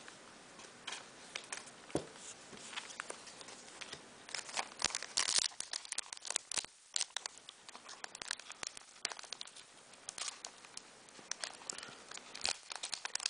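Foil Pokémon card booster pack crinkling and rustling as it is handled and torn open, in quick irregular crackles that grow busier about four seconds in and again near the end.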